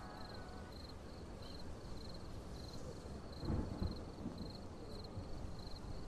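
Faint background noise with a high-pitched chirp repeating about every two-thirds of a second, and a few dull thumps about three and a half seconds in.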